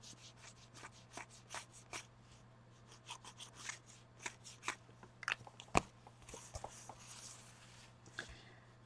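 Faint clicks, taps and paper rustles of collage paper and craft tools being handled, with one sharper click about two-thirds of the way through, over a low steady hum.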